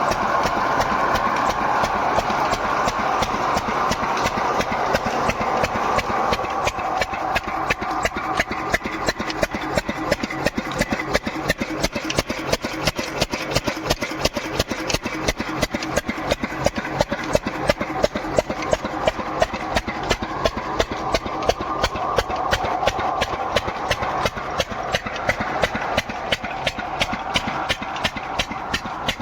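An engine running steadily at idle with a regular, evenly spaced knocking beat.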